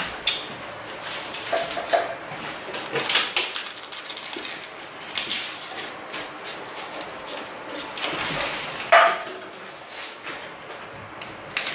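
Scattered clicks, knocks and rustling from kitchen utensils and containers being handled at a counter, with a sharper knock about nine seconds in.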